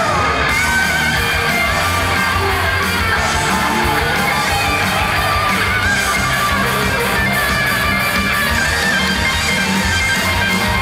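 Upbeat idol-pop song with strummed electric guitar, playing loud and continuous.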